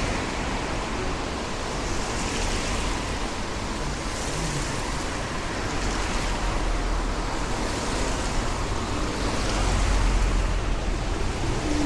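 Road traffic passing on a wet road: cars and a van go by one after another, their tyres hissing on the soaked tarmac and swelling as each one passes. An engine's low rumble grows louder near the end.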